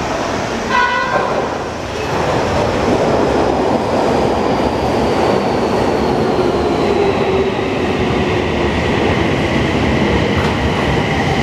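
Toei 6300-series train pulling into the station: a short horn blast about a second in, then the loud running noise of the train with whining tones that slowly fall in pitch as it brakes.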